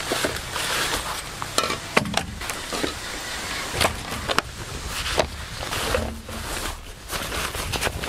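Camping gear being handled and unpacked: irregular knocks, clicks and rustling over a steady background hiss.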